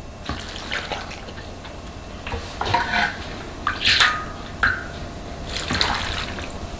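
Salt brine poured from a plastic bowl into an earthenware kimchi crock of radish and green onions, splashing in several goes as the bowl is dipped back into a steel basin for more.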